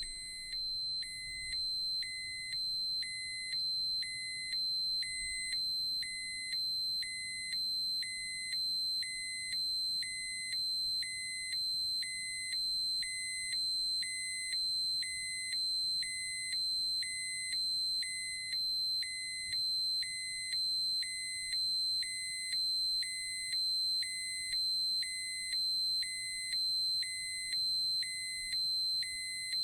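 Electronic dosimeter alarm sounding: a continuous high-pitched tone with a second, lower beep pulsing over it about once a second, steady and unchanging.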